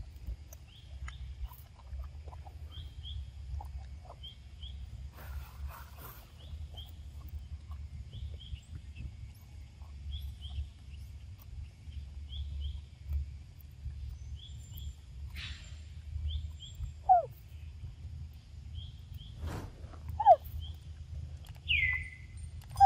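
Forest ambience: a short high double chirp repeats every second or so over a steady low rumble, with a few short, louder calls and a falling whistle in the last few seconds.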